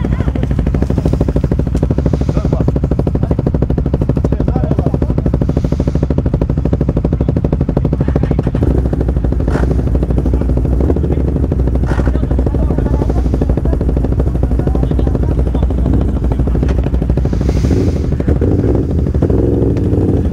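Can-Am Outlander XMR 1000 ATV's V-twin engine running at a steady pace, with two sharp knocks about ten and twelve seconds in.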